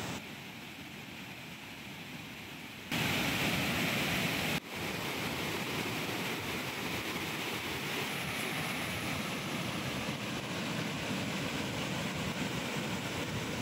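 Water pouring over a river weir and rushing through rocky rapids: a steady rush of white water. It jumps louder about three seconds in and drops out for a moment at about four and a half seconds.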